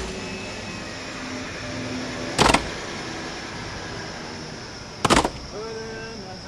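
Two sharp knocks about two and a half seconds apart, each a quick double hit, over steady background noise.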